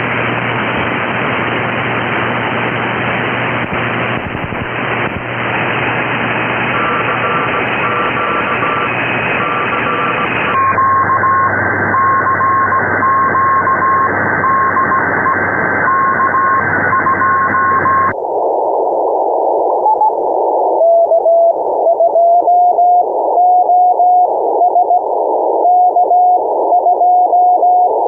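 Elecraft K3S shortwave receiver on the 40-metre amateur band: wideband band-noise hiss with faint Morse code (CW) signals beeping on and off. About ten seconds in, the hiss narrows and a keyed CW tone stands out. Around two-thirds of the way in it narrows again to a thin band where a lower-pitched CW signal keys on and off clearly, as the receiver's filter is stepped down for CW.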